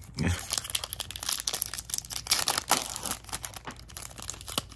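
Foil Yu-Gi-Oh! booster pack wrapper being torn open and crinkled by hand, a dense run of irregular crackles.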